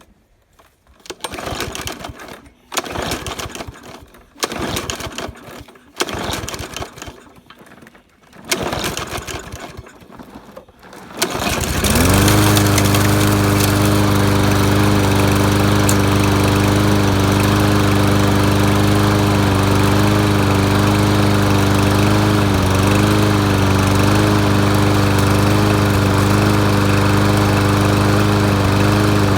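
Lawnmower engine being pull-started: about five short cranking bursts, then it catches about eleven seconds in and runs steadily, its carburetor just cleaned and running on old gas.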